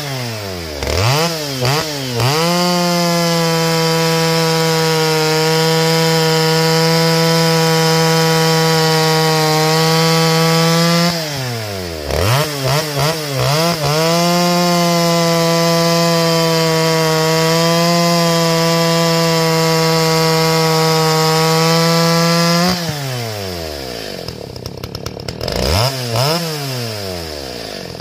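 Stihl 029 two-stroke chainsaw with a muffler mod, running at steady full throttle through two long cuts in logs. Between the cuts it drops back with a few quick throttle blips, and near the end it falls to idle with a couple more blips.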